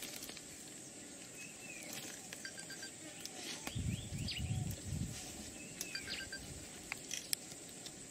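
Outdoor scrub ambience: scattered short bird chirps over a steady high insect hum, with a stretch of low muffled rustling near the middle.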